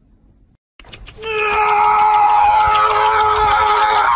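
A long, loud, high cry held at nearly one pitch for about three seconds, sagging slightly, starting about a second in and cutting off abruptly.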